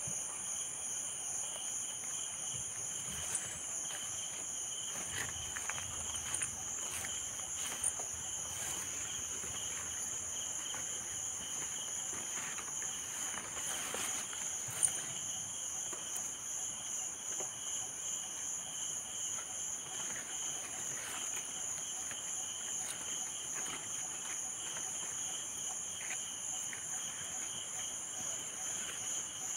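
Steady high-pitched chorus of insects, with a fast even pulse, forms the ambience of the plantation. A few faint ticks and rustles come from hands pressing soil around freshly planted betel vine cuttings.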